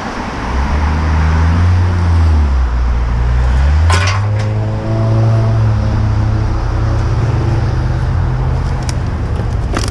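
Traffic passing close on a busy wet road: a steady low rumble of engines and tyres, with a heavier vehicle's engine note rising and falling as it goes by. A sharp knock about four seconds in and another near the end.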